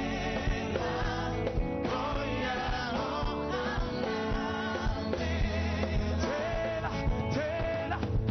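Worship song: a singer over a band with guitar and a steady beat.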